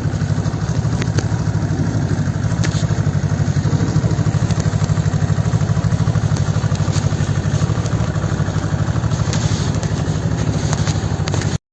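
Snowmobile engine idling steadily with a fast, even pulse; it cuts off suddenly near the end.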